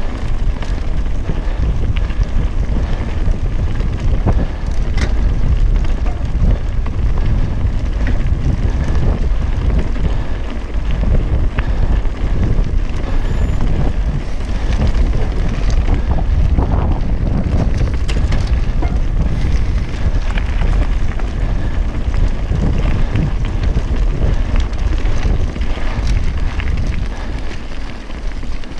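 Wind buffeting a helmet camera's microphone while riding a mountain bike down a rocky gravel trail, a steady low rumble with tyres on loose stones and frequent sharp clicks and knocks from the bike.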